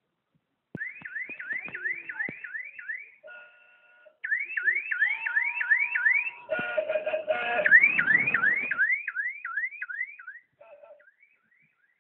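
An electronic siren-like warble: a quickly repeated rising whoop, about three a second, in three runs, with a short burst of noise between the second and third.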